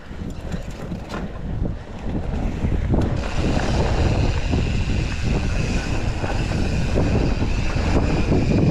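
Wind buffeting a chest-mounted GoPro's microphone as a mountain bike descends a dirt forest trail, with tyre noise and rattling from the bike; a few sharp clicks in the first second, and the rush grows louder about three seconds in as speed picks up.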